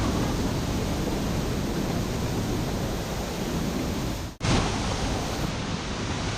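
Steady rushing noise of a large waterfall's falling water, cut off for an instant about four seconds in before it carries on.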